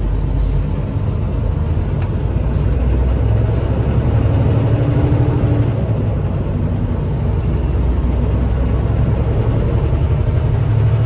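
Semi truck's diesel engine and road noise heard from inside the cab while driving: a steady, loud low drone.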